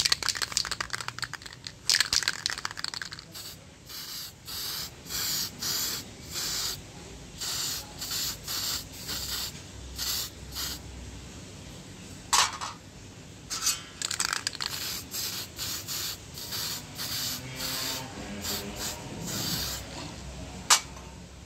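Aerosol spray-paint can hissing in many short bursts, each under a second, as paint is sprayed onto a small steel bracket, with a few sharp clicks in between.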